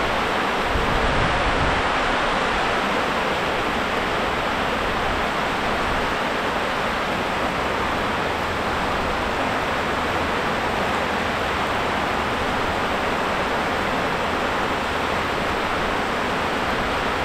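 Heavy rain falling: a steady, dense hiss that holds level throughout.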